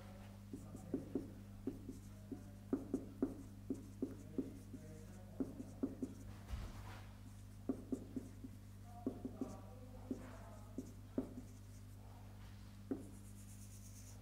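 Marker pen writing on a whiteboard: a string of short, sharp taps and strokes as the letters are written, over a steady low electrical hum.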